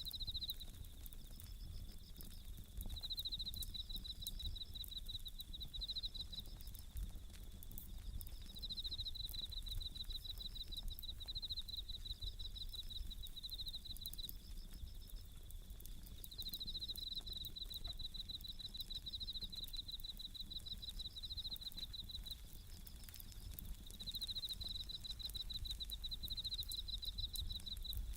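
Bell crickets (suzumushi) chirping in repeated high trilled phrases with short pauses between them, over the faint crackle and small pops of a wood campfire.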